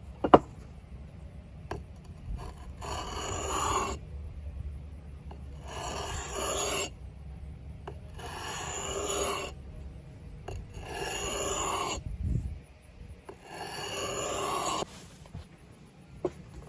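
Axe blade drawn slowly across an oiled whetstone: five long rasping strokes, each about a second long and two and a half seconds apart. A single sharp knock comes just after the start.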